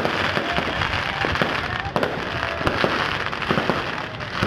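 Fireworks going off: a dense, continuous crackle with many sharp pops.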